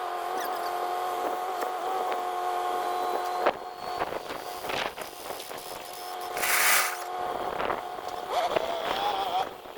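A motor running with a steady hum, with a few sharp knocks and a short burst of hiss about six and a half seconds in; the hum wavers in pitch near the end.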